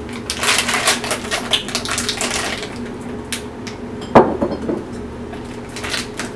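Plastic bag crinkling and crackling in the hands, busiest in the first two and a half seconds and again near the end. About four seconds in comes one sharp knock of glass on the counter with a short ring.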